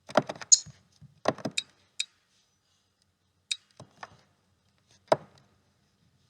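Lego Technic plastic pieces clicking and clattering as they are handled and snapped together, in four short clusters of sharp clicks.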